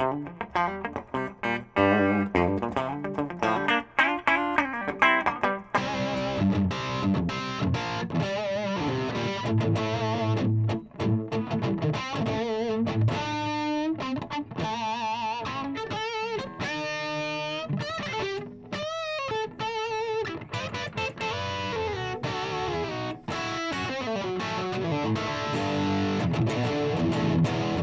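Gibson Les Paul electric guitar played through an overdriven Friedman tube amp: a lead passage of picked single notes, with bends and wide vibrato on held notes in the middle stretch.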